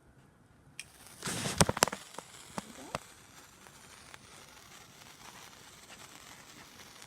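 Hand-held sparkler catching light: a loud flare with a rapid run of sharp cracks, a few more single cracks, then a steady faint fizzing crackle as it burns.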